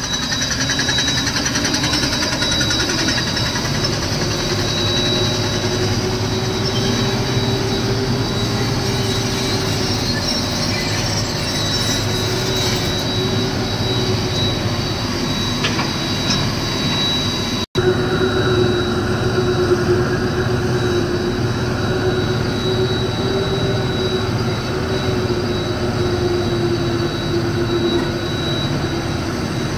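Heavy diesel machinery running steadily at work, an excavator loading a truck, with a whine that wavers slightly in pitch over it. The sound cuts out for an instant about 18 seconds in.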